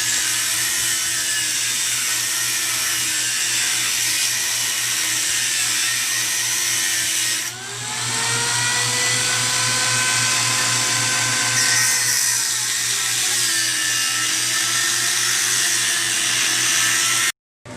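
An electric power tool running steadily. Its pitch rises about halfway through, holds for a few seconds, then falls back, and the sound cuts off abruptly near the end.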